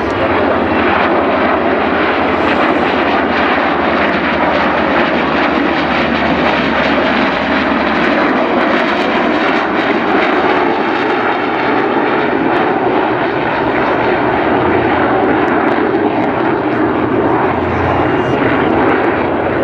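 Loud, steady rush of jet engine noise from an F-22 Raptor flying in the airshow display.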